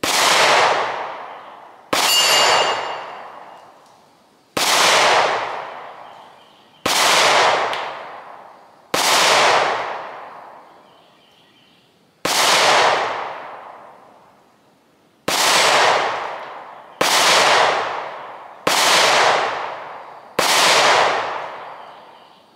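Ten shots from a Springfield Hellcat 9mm micro-compact pistol, fired one at a time about two to three seconds apart, each with a long echoing tail. A brief metallic ring follows the second shot.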